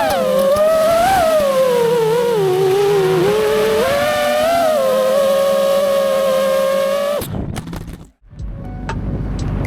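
FPV quadcopter motors whining, the pitch sliding up and down with the throttle. The whine cuts off abruptly about seven seconds in, and after a moment's silence a different low rumble begins.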